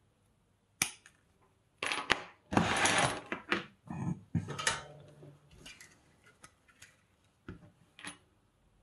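A circuit board, a multimeter with its test leads and hand tools being handled and set down on a workbench cutting mat. There is a sharp click under a second in, then a dense run of knocks and clatter with about a second of rubbing between two and five seconds in, then scattered light clicks.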